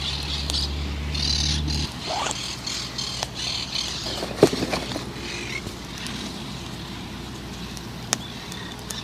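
Birds chirping and squawking in the background, with a few sharp clicks of fishing tackle being handled, the loudest about halfway through. A low steady hum stops abruptly about two seconds in.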